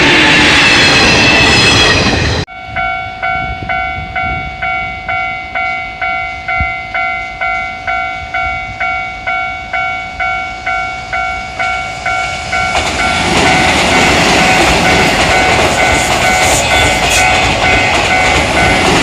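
A Japanese level-crossing warning bell ringing its 'kan-kan' about twice a second; from about 13 s a Keihan Main Line train runs through the crossing, its rushing wheel and rail noise covering the bell, which keeps ringing beneath it. In the first couple of seconds a train is heard running past before an abrupt cut.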